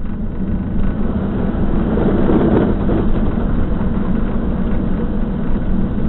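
Motorhome driving slowly through shallow floodwater on a road: a steady, loud rumble of engine and road noise that swells about two seconds in.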